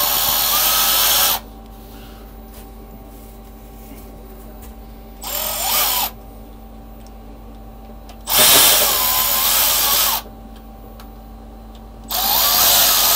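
Handheld cordless drill running in four short bursts, its motor whining up to speed each time, backing out fasteners to take off a mill's way cover.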